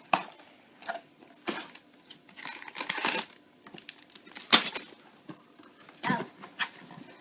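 A small cardboard Lego set box being opened by hand: the card tearing, and plastic bags and paper rustling in short separate bursts, with one sharp knock about halfway through.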